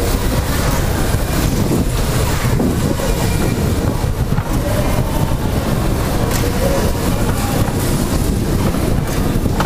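Dodgem car driving across the metal floor: a steady, loud rumble and rattle of its wheels and motor.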